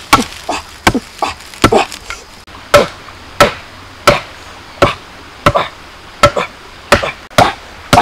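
A bamboo stake being driven into the ground by repeated blows from a length of bamboo used as a mallet: a steady run of sharp, hollow knocks, roughly one every two-thirds of a second, each with a short ring.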